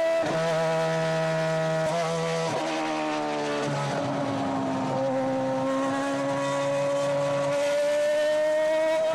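Sauber C30's Ferrari 2.4-litre V8 Formula One engine running at high revs on track. Its pitch holds fairly steady, dips a little around the middle and climbs again near the end. A lower engine note beneath it drops in steps several times in the first few seconds.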